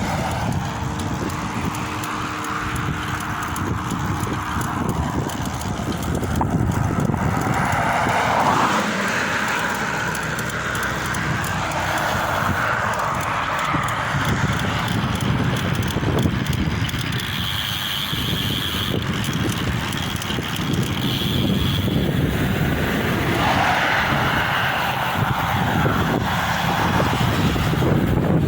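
Strong wind buffeting the microphone of a bicycle-mounted camera while riding on the road, a continuous loud rushing and rumbling. A thin high steady tone sounds for a few seconds past the middle.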